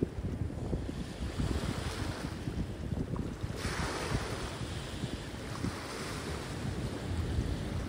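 Waves washing against a rocky shore, a hiss that swells and eases several times, with wind rumbling on the microphone.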